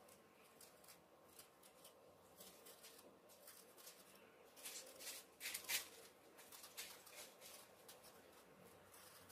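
Knife peeling an apple: faint short scraping strokes of the blade through the skin, louder for a moment about halfway through.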